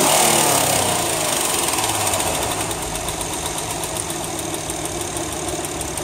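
Honda 3.5-litre V6 engine settling from a light rev to idle, with a rapid, even, really loud ticking from the engine. The cause is unknown to the owner; advice he found online suggests the valves may need adjusting.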